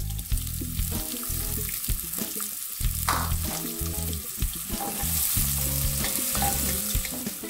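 Sliced onions sizzling steadily in hot cooking oil in a nonstick pot, stirred with a wooden spoon in the last few seconds.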